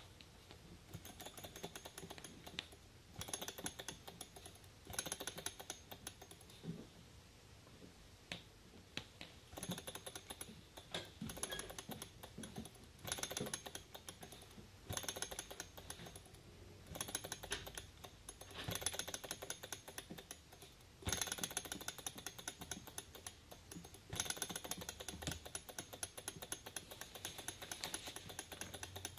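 Small Stirling engine driving a model tank, clicking fast and densely from its moving linkage and tracks. The clicking swells in stretches of a second or two and eases between them.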